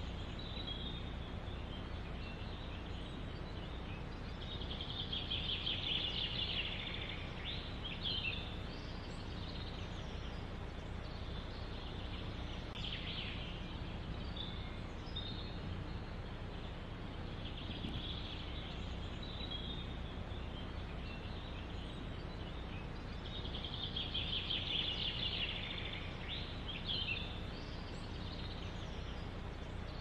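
Forest ambience: songbirds singing in phrases every few seconds, loudest twice, over a steady low background noise.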